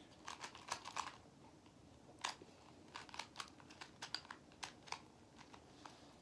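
Plastic puzzle cube being twisted by hand: faint, irregular clicks as its layers turn.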